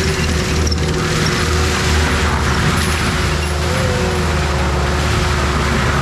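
Diesel engine of an ASV RT-120 tracked skid steer with a forestry mulcher head, running steadily at working speed as the machine drives past, with a constant drone and a few steady tones over a noisy mechanical wash.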